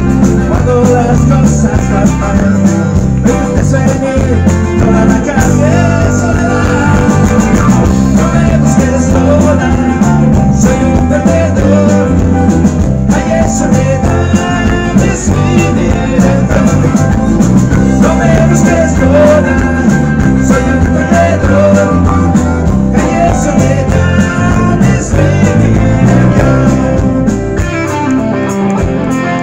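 Live rock and roll band playing loud, with electric guitars, bass and drums, and a diatonic harmonica cupped to the microphone playing a lead line that slides in pitch.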